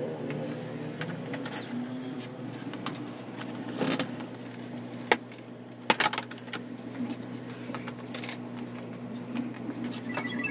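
Plastic scooter body panels clicking and knocking as the cracked front cowl is pried off its clips, with two sharp snaps about five and six seconds in, over a steady low hum.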